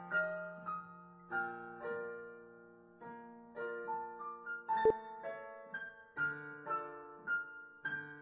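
Digital piano played at a gentle pace: a melody of single notes about every half second over held low bass notes, each note fading after it is struck. A sharp knock sounds about five seconds in.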